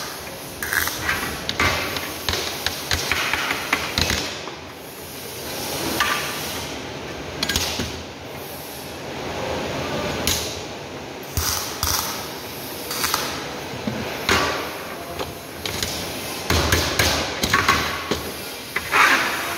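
Irregular knocks and clatter: many sharp impacts at uneven spacing over a steady background noise.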